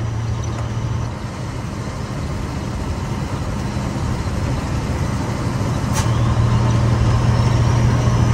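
Scania 113 truck's six-cylinder diesel engine running at road speed, heard from inside the cab over tyre hiss on the wet road. The engine hum drops back about a second in and comes up louder again about six seconds in, with a sharp click at that point.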